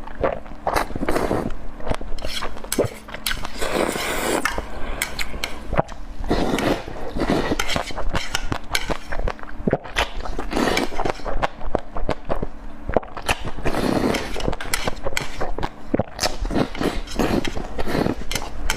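A person eating noisily, chewing and smacking with rapid wet clicks and crunches throughout.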